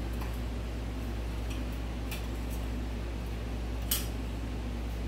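Light metallic clicks and taps as a metal hard fuel line is worked into place in the engine bay, a few faint ones and one sharper click about four seconds in, over a steady low hum.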